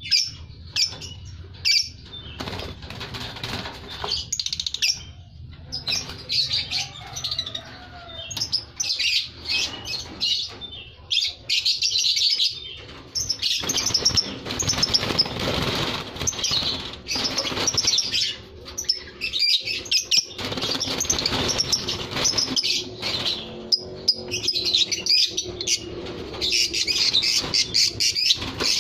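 Lovebirds chirping in quick, shrill, repeated calls, with stretches of wing-flapping as the birds flutter about the wire cage.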